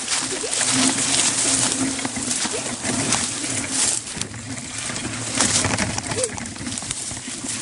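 Rustling and crackling of dry leaves, twigs and branches as people push through undergrowth, with many small snaps and crunches.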